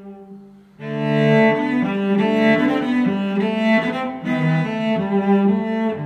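Background instrumental music of slow held notes. A phrase dies away near the start, and a louder one begins about a second in.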